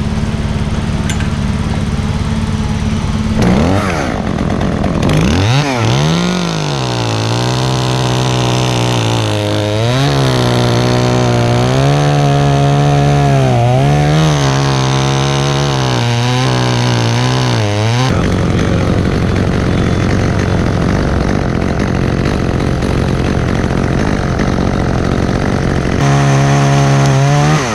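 Small gas top-handle chainsaw running, its engine revving up and down again and again. It then gives way to a rougher, steadier stretch, and revs again near the end.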